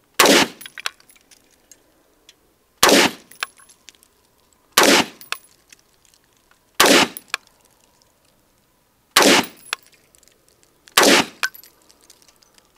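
AR-15 rifle fired in slow semi-automatic fire: six single shots about two seconds apart, each followed by a few faint ticks.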